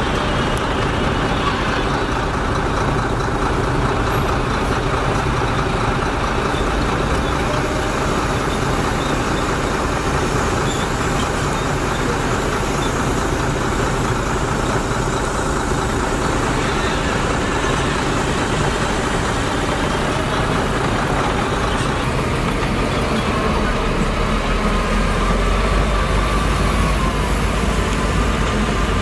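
Diesel engines of heavy earthmoving machinery running steadily under work. Near the end the deep low rumble grows stronger.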